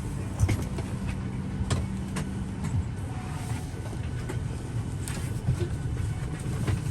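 Boeing 737-800 cabin ambience during boarding: a steady low rumble of the aircraft's air and ventilation, with scattered clicks and knocks from passengers settling in.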